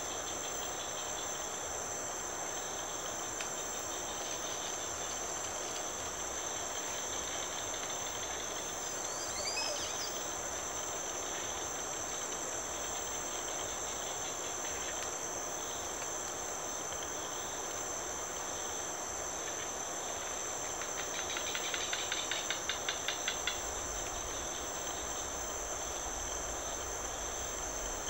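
Insects trilling steadily in a high, unbroken drone over a soft hiss. A brief gliding whistle comes about a third of the way in, and a louder rapid pulsing call lasts about two seconds some two-thirds of the way in.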